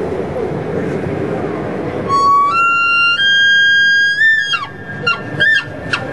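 Bull elk bugle imitated on a hand-held elk bugle call: a high whistle begins about two seconds in, steps up in pitch twice and is held for about two seconds, then breaks off into several short, falling chuckle notes.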